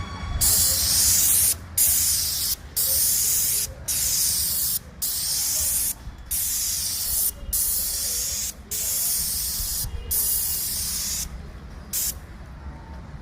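Paint spray gun of a wall-paint spray machine hissing in about ten bursts of roughly a second each, the trigger released briefly between them, stopping near the end. A steady low hum runs underneath.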